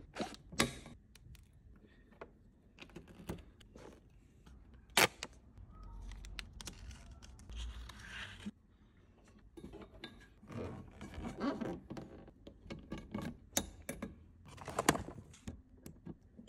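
Hands handling a flexible earth cable and a plastic bonding clamp: irregular clicks, taps and rustling, with a sharp click about five seconds in and a busy run of small clicks in the last few seconds.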